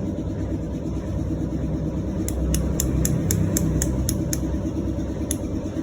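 Kawasaki KLX150 single-cylinder four-stroke engine idling with a steady rumble. From about two seconds in, a run of sharp clicks, about three or four a second, sounds over it.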